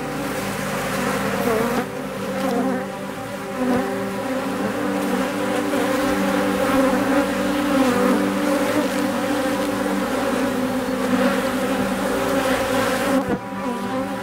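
Honeybees buzzing in a steady, dense hum over the open frames of their hive. The colony is stirred up, and the keeper calls it a little aggressive.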